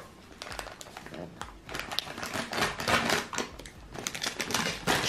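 Shipping packaging being handled and torn open: irregular crinkling and crackling with scattered clicks.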